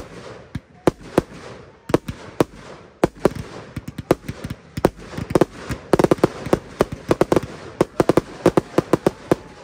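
Aerial fireworks going off in quick succession: a string of sharp bangs and pops with crackle between them, crowding into a dense volley of reports from about halfway through.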